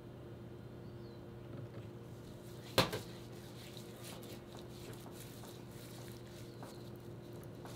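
Gloved hands spreading Worcestershire sauce over a scored pork butt: faint, soft wet handling over a steady low hum, with one sharp click nearly three seconds in.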